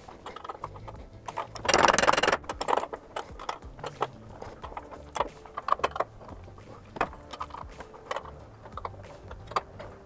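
Locking pliers (vise grips) being unclamped and taken off a steel garage door track: a loud burst of noise about two seconds in, then scattered light metallic clicks and clinks.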